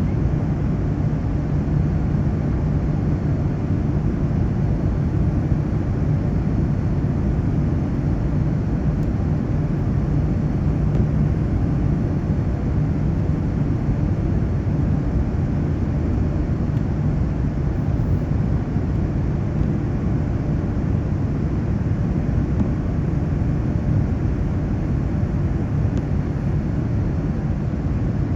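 Boeing 787 airliner in flight, heard from inside the passenger cabin: a steady, even rumble of engine and airflow noise that does not change.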